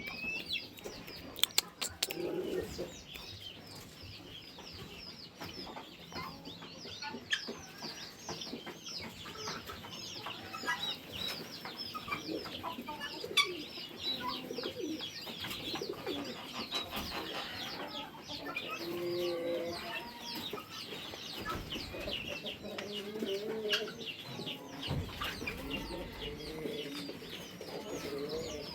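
A mixed poultry flock calling: a dense, continuous chorus of short high peeps, with lower clucking calls scattered through it and a few sharp clicks.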